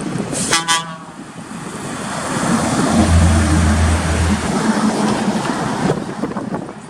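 A short horn toot, then a vehicle passing: a rising and falling rush of noise with a deep low hum at its loudest.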